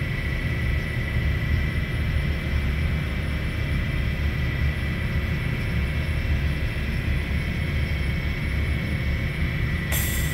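Haas VF-6 trunnion machining center running, its trunnion table tilting and rotating: a steady low rumble with a thin, constant high whine. A brief hiss comes near the end.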